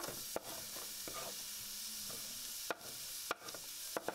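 Chopped onion sizzling as it lands in hot oil in a frying pan, a steady hiss that starts suddenly. A wooden spoon knocks sharply about four times as it scrapes the onion off a cutting board into the pan.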